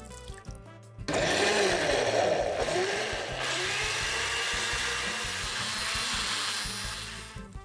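Countertop blender starting suddenly about a second in and running for about six seconds as it blends frozen strawberries and water into a puree. Its pitch dips and rises at first, then holds steady before it winds down near the end.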